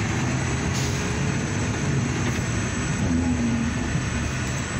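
Dump truck engine running with steady road noise, heard from inside the cab while the truck is being driven.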